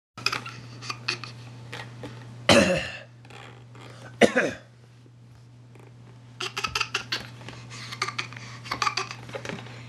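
A baby's fake coughs: two short loud coughs about two and a half and four seconds in, with bursts of quick clicky sputters before and after them.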